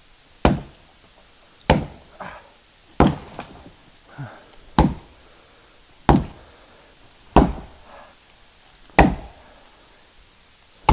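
Axe chopping into a log: seven hard, evenly paced strikes about a second and a half apart, with a few fainter knocks between them.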